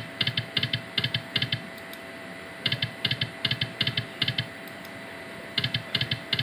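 Video slot machine running three spins in a row, each spin a quick run of sharp clicking ticks lasting about a second and a half as the reels spin and stop, over a faint steady electronic tone.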